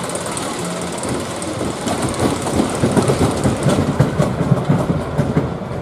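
Small amusement-park ride train rattling along its track, a fast run of wheel clatter that grows louder about two seconds in and eases off near the end.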